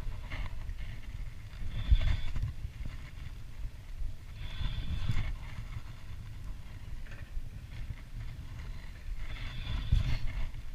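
Spinning reel cranked in a few short spells while under load from a hooked Guelly jack, over a low rumble of handling and wind noise on the camera.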